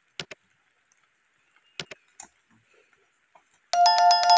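Subscribe-button animation sound effect: a few sharp mouse clicks, then about three and a half seconds in a loud bell-like notification chime that rings on.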